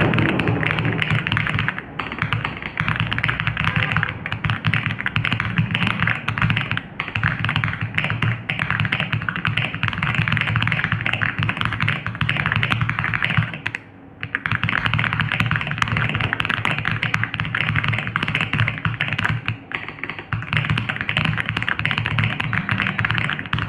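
Fast, continuous typing on an Aula F99 mechanical keyboard with Crescent switches: a dense, rapid stream of keystrokes, broken by one short pause about two-thirds of the way through.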